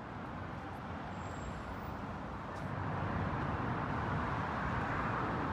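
Street traffic noise, a steady rumble of passing vehicles that gets louder about halfway through.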